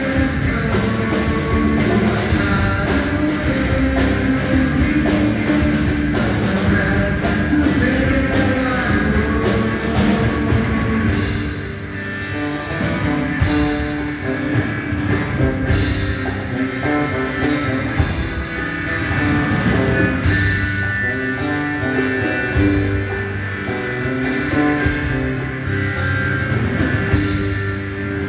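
A live rock band playing, with drum kit, guitar and a hand percussionist on a small drum. The music's high end drops away suddenly near the end.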